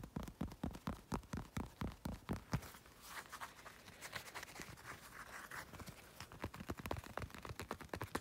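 Fingertips tapping rapidly close to the microphone, about six taps a second. About three seconds in, the tapping gives way to a scratchy rustle, and it comes back near the end.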